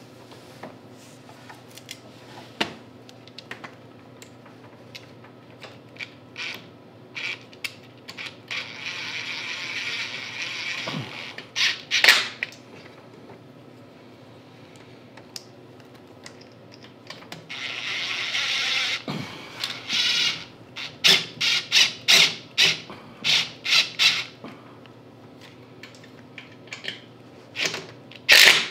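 Cordless DeWalt Atomic driver spinning T27 bolts into a snowblower's electric starter mounting. There are two runs of whirring of a couple of seconds each, about 9 and 18 seconds in, then a string of short, sharp bursts about two a second from about 20 seconds in, and more near the end.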